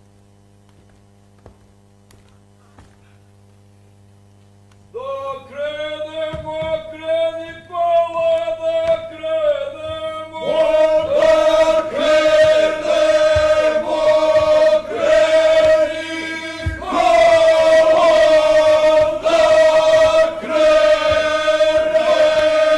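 A low steady hum, then about five seconds in a group of voices starts singing a slow folk song with long held notes, getting fuller and louder partway through. A few dull thumps sound under the singing.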